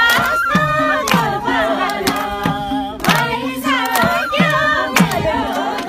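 Nepali dohori folk song: voices singing over a drum that beats a steady rhythm, with sharp hand claps among the beats.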